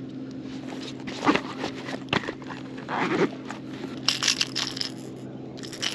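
Irregular rustling, scraping and clicks as a freshly caught skipjack herring is handled and worked off a crankbait's treble hooks with pliers, over a steady low hum.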